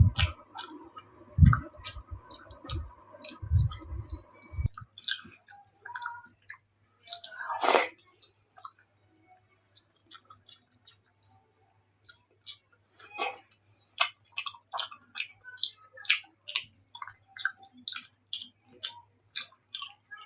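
Close-miked chewing of soft food: a run of short wet clicks and mouth smacks, with a few louder ones, and some low thuds and a steady hum that stops about four seconds in.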